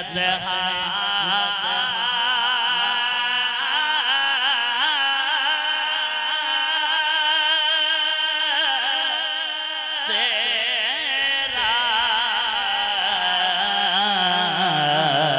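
A man singing an Urdu naat without words breaking through, drawing out long ornamented notes with a wide vibrato; a new phrase begins about ten seconds in.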